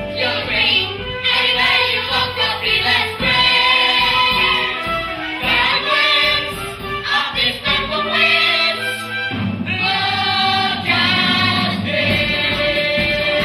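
Stage-musical cast singing together as a chorus over instrumental accompaniment.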